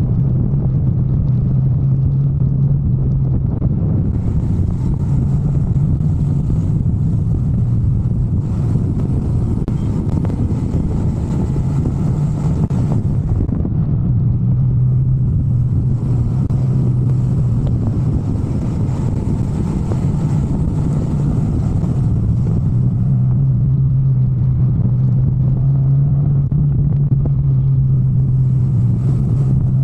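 Motorcycle engine running at a steady cruise, a constant low drone with wind and road hiss that swells and fades.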